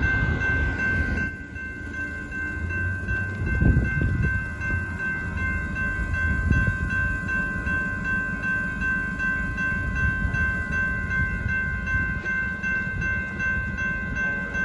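Railroad crossing electronic bells (an NEG bell and a WCH Type 1.5 bell) ringing in a fast, even, high-pitched ding as the crossing activates and the gates lower for an approaching train. Road traffic rumbles underneath, swelling twice.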